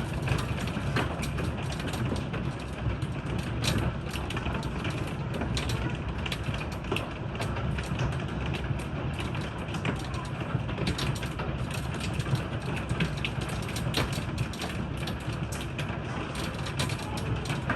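Hail and heavy rain hitting hard surfaces: a dense, irregular clatter of small impacts over a steady rush of rain.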